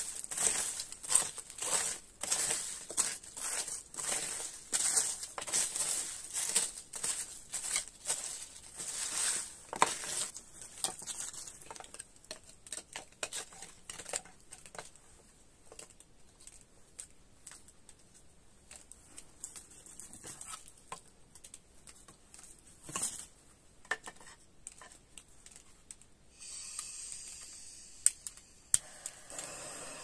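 Close crinkling and rustling of something being handled: thick for the first ten seconds or so, then scattered clicks. A steady hiss starts near the end.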